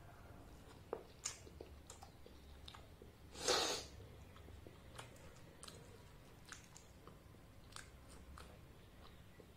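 Close-up chewing of luchi (deep-fried puffed bread) with ghugni, with scattered small wet mouth clicks and one louder crackle about three and a half seconds in.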